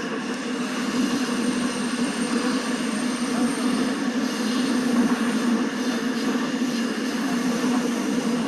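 Seoul Subway Line 7 train running between stations, heard from inside the car: steady rumble with a constant hum, growing a little louder about a second in.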